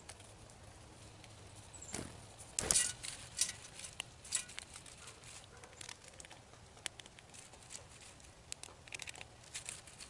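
Birds pecking seed from trays on a metal table. Irregular light clicks and taps of bills on seed and seeds scattering, with a louder flurry of knocks and rustling about two to three seconds in.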